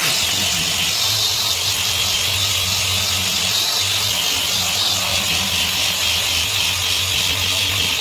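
An electric power tool running steadily: a continuous hiss over a low motor hum.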